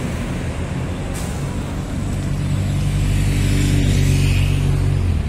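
Motor vehicle engine running close by with a steady low hum that grows louder over the first few seconds and cuts off abruptly near the end.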